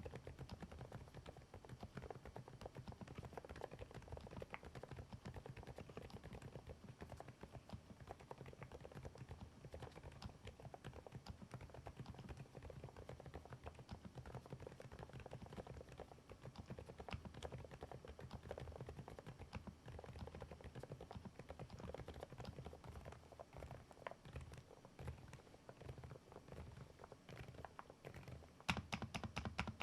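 ABKO A108K full-size mechanical keyboard being typed on steadily and very quietly: the soft, damped keystrokes of its low-noise cherry-blossom (벚꽃축) switches. Louder, sharper keystrokes begin near the end.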